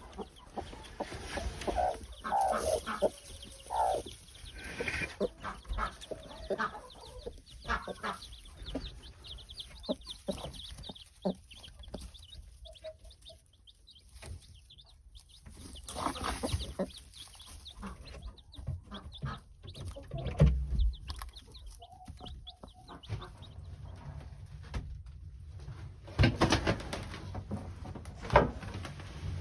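Chickens clucking in short, scattered calls, with rustling and knocks around them and one heavier thump about two-thirds of the way through.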